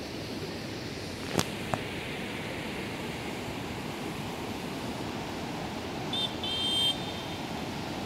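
Rushing mountain river, a steady noise of white water running over boulders. A sharp click comes about a second and a half in, and a short high chirp near the end.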